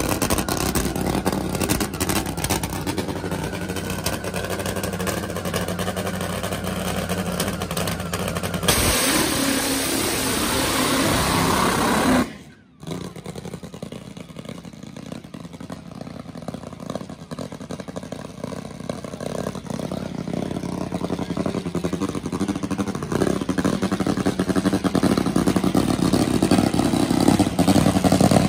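Nitro-burning Top Fuel drag bike engine running steadily on the starting line, then launching at full throttle about nine seconds in, a much louder blast lasting about three seconds. The sound then drops away sharply, and a quieter engine sound builds steadily louder toward the end.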